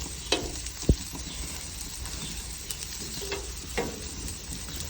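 Dim sims frying on a barbecue hot plate: a steady sizzle, with a few brief pops and clicks, the loudest about a second in.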